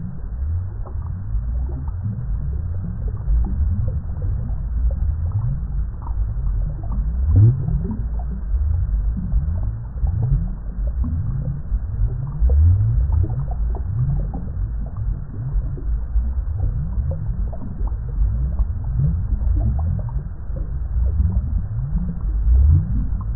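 Water bubbling: a continuous, dense stream of low, deep bubbles, each a short blip rising in pitch.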